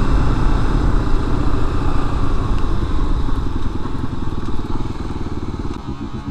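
Kawasaki KLR250 single-cylinder four-stroke motorcycle engine running under way, heard from the rider's position; it gets quieter over the last couple of seconds as the throttle eases off.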